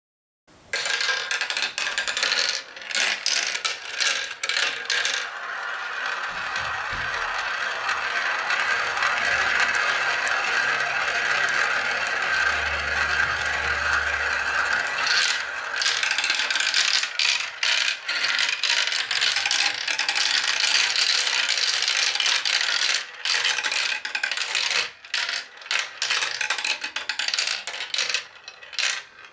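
Plastic balls rolling and clattering through a plastic marble run: sharp clicks as they drop onto and knock against the track pieces, a steady rolling rattle through the middle as many run at once, with a low rumble while they circle a funnel bowl, thinning to scattered clicks near the end.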